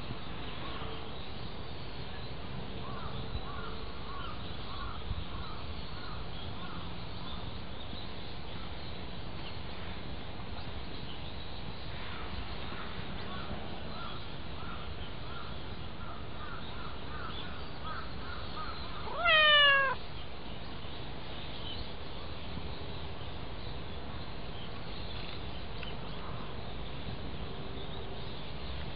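A cat gives a single short meow, falling slightly in pitch and lasting under a second, about two-thirds of the way in, over a steady background hiss with faint repeated chirps.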